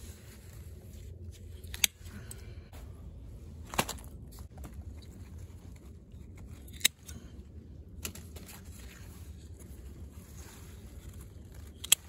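Scissors snipping eggplant stems: four sharp snips a few seconds apart, with leaves rustling in between.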